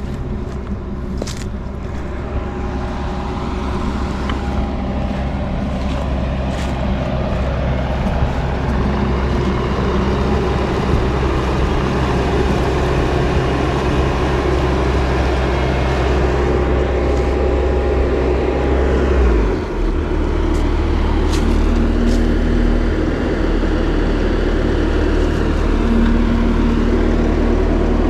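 Bobcat T650 compact track loader's diesel engine running steadily while the machine drives, its low note shifting about two-thirds of the way through, with a few sharp clicks.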